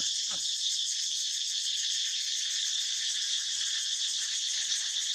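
Steady, high-pitched insect chorus droning without a break, with one short falling call just after the start.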